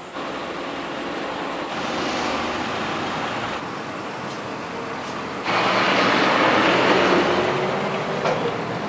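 Steady hissing, rushing background noise of a working restaurant kitchen. It changes abruptly in level several times and is loudest for about three seconds from just past the middle.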